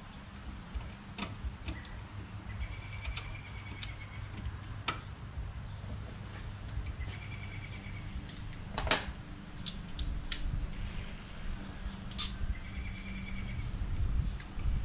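Light clicks and taps of fittings and hoses being handled at the engine bay, over a low steady hum. A short high-pitched trill comes three times.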